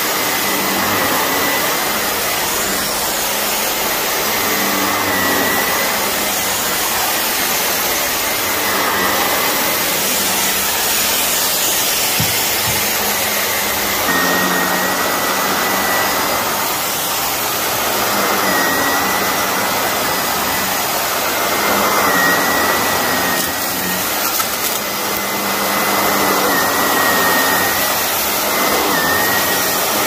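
Shark upright vacuum cleaner running steadily with a high motor whine, sucking dry soil out of a heavily soiled carpet. Its roar swells and eases every few seconds.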